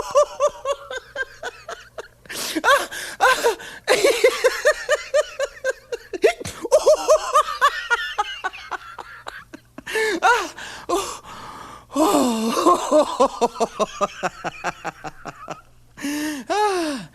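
A person laughing hard in several high-pitched bouts, each a run of quick pulses, with gasping breaths between them.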